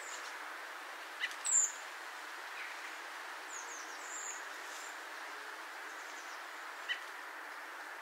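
Redwing flight calls: a clear, indrawn whistle, thin and high, heard about one and a half seconds in and again around four seconds, over a steady background hiss with a couple of faint short ticks.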